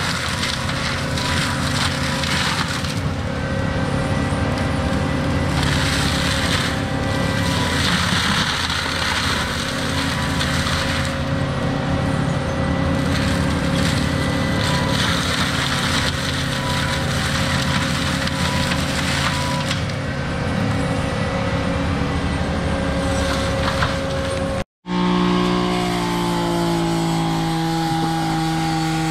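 Diesel heavy land-clearing machine running hard while brush and wood crack and splinter in repeated surges. About 25 s in the sound cuts out for an instant and comes back as a steadier engine note with a whine that slides in pitch.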